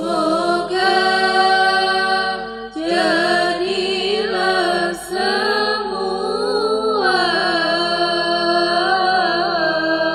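Young women's voices chanting a syair, a farewell poem, together into microphones, in long held notes with wavering melodic ornaments.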